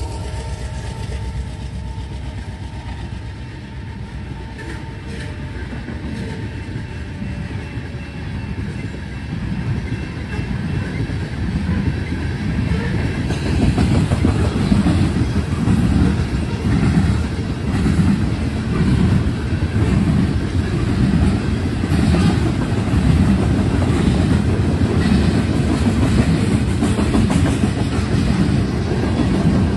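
Freight train rolling past: a steady low rumble from the train, then a long string of covered hopper cars whose wheels clatter in a regular rhythm over the rail joints, growing louder about halfway through.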